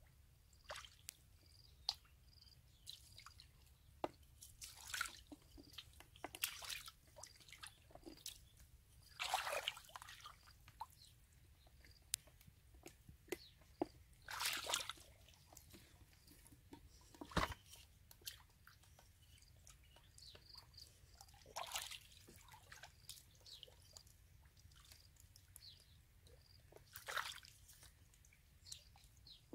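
Hands groping through shallow muddy water and soft mud: scattered small wet squelches and drips, with a few louder sloshes spread through.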